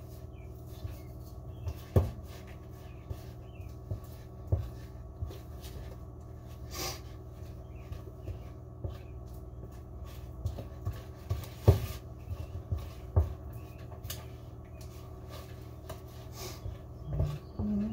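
Wooden spoon stirring stiff pizza dough in a mixing bowl, with irregular knocks and scrapes of the spoon against the bowl as the flour is worked in and the dough starts to form a ball. A steady low hum runs underneath.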